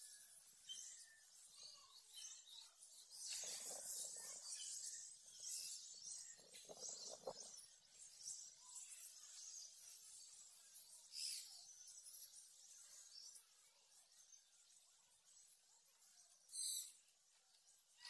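Faint outdoor ambience of high-pitched bird chirps, with two short louder, fuller noises a few seconds in and a brief sharp sound near the end.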